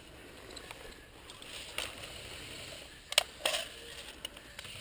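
A G&G M14 EBR airsoft rifle being handled as a magazine is worked at it: a few sharp clicks, the loudest a little over three seconds in with another just after, over a low rustle of movement on dry leaves.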